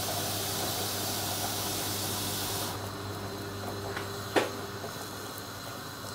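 Steady hiss with a low hum under it; the hiss cuts off suddenly about three seconds in. A single sharp knock follows a little later.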